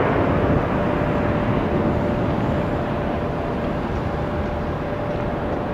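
Airbus A330-200 jet engines at taxi power, a broad steady rush fading gradually as the airliner moves away, with a thin steady whine underneath from about half a second in.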